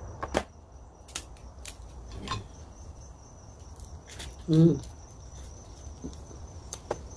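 Eating crab legs: scattered sharp clicks and taps of shell and utensils, with a short voiced hum about four and a half seconds in. A faint steady high cricket trill runs underneath.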